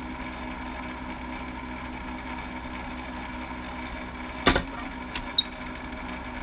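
Steady hum of a small electric motor or fan. A sharp click about four and a half seconds in, and a fainter one shortly after.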